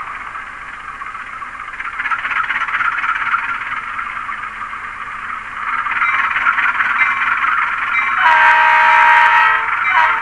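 Model-train sound decoder (ESU LokSound Select, GE FDL diesel sound) playing a diesel engine's rattle through the locomotive's small speaker, growing louder about 2 s in and again about 6 s in. Near the end a single chorded horn blast sounds for about a second and a half.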